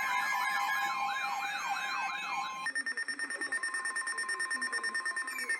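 Electronic siren wailing, its pitch sweeping up and down about twice a second. A little under three seconds in it switches to a fast pulsing steady tone. Near the end the pitch starts to fall away.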